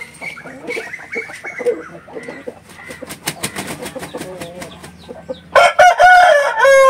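Patta fighting rooster beating its wings in a quick run of flaps, then crowing loudly in one long crow that starts near the end. Other chickens call softly before it.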